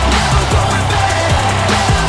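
Loud electronic background music with deep sustained bass notes and hard, pitch-dropping drum hits.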